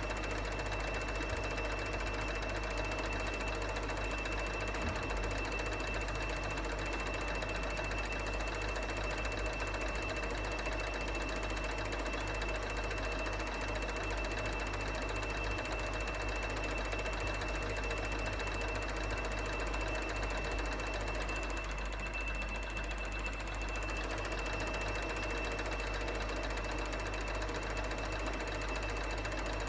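Elmo film projector running: a steady mechanical clatter from its film-advance mechanism over a constant motor hum.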